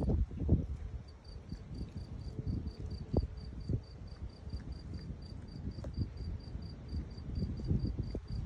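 An insect chirping steadily in the grass, a high pulse about four times a second, over irregular low crunching and rustling as a Shiba Inu tears and chews grass.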